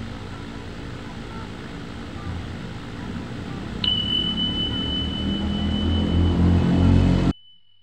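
Subscribe-button animation sound effect: a sharp click, then one high bell-like ding that rings steadily and fades away. Under it runs a low background noise that grows louder and then cuts off suddenly near the end.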